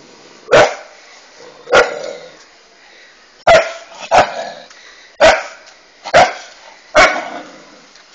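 Dog barking: seven sharp, loud barks spaced about a second apart.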